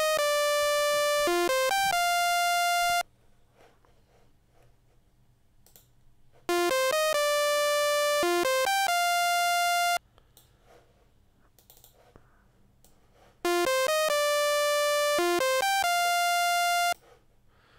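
Logic Pro X ES2 software synthesizer playing a basic lead melody with a bright, buzzy tone. A short riff of quick notes ends on a held note, and the riff plays three times with pauses between.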